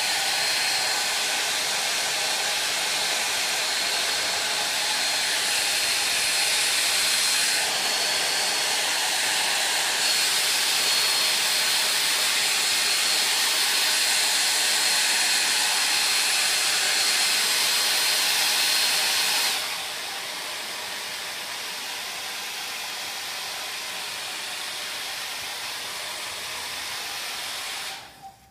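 Hand-held hair dryer running steadily with a high whine over the rush of air. About two-thirds through it drops to a quieter setting, and it switches off just before the end.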